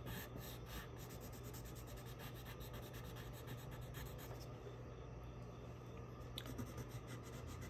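A white colored pencil scratching quick short strokes on construction paper as small stars are drawn: faint, irregular scratches in little clusters. A low steady hum sits underneath.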